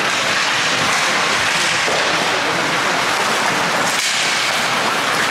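Ice hockey play on a rink: a steady, loud scraping hiss of skate blades carving the ice, which changes abruptly twice.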